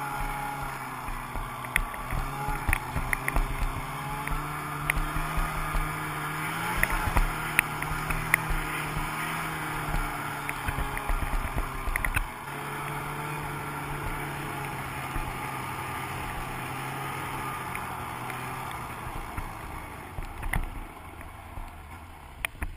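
Snowmobile engine running at a steady speed, its pitch wavering slightly with the throttle, with scattered sharp knocks; near the end the engine eases off and goes quieter.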